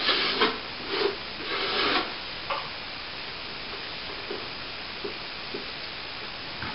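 Hand tool scraping on fresh plaster: three short rasping strokes in the first two seconds, then a few faint light clicks.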